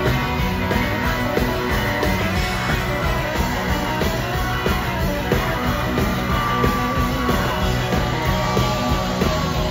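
Live rock band playing a loud, dense, mostly instrumental passage; a long held lead note slides in pitch in the second half.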